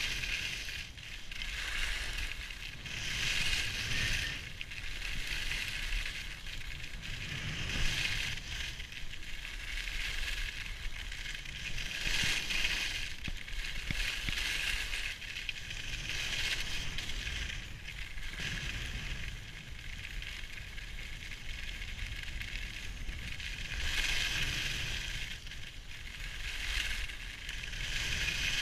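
Skis scraping and carving over packed snow, the hiss swelling and fading with each turn every few seconds, over a steady low rumble.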